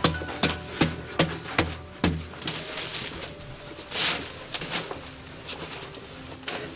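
A short-handled digging tool chopping into packed earth in steady strokes, about two or three a second, which stop a little after two seconds in. Then loose soil is scraped up and dumped into a woven basket, with a rush of falling dirt about four seconds in and scattered soft knocks after it.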